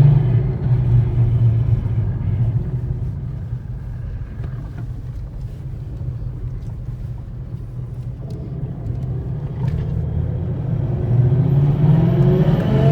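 A 2012 Ford Mustang Boss 302's 5.0 L V8 heard from inside the cabin while driving. The engine drone is loud at first, eases off through the middle, then builds again with rising pitch near the end as the car accelerates.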